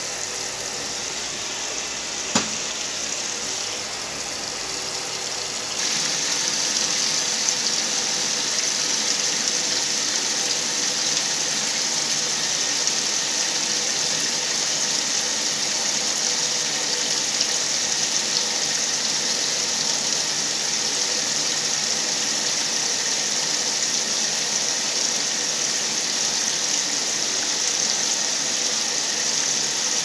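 Whirlpool top-load washing machine filling with water: a steady gush of water pouring into the tub onto the blankets, getting louder about six seconds in. A single click a couple of seconds in.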